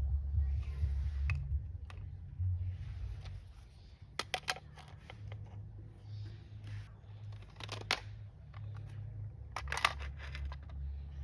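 Plastic toy guns and equipment being handled and set down: clusters of sharp clicks and knocks about four, eight and ten seconds in, over a low rumble.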